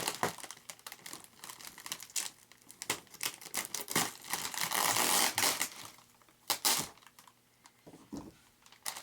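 Packing wrap crinkling and tape tearing in irregular bursts as taped-together kit parts are unwrapped, with a quieter stretch about seven seconds in.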